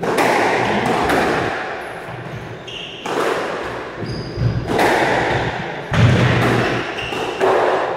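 Squash rally: the ball hit by racket and thudding off the court walls about once a second, each strike echoing in the court, with short squeaks of shoes on the wooden floor.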